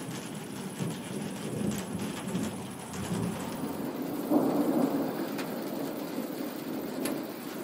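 Steady rain with thunder rumbling, and a louder roll of thunder about halfway through.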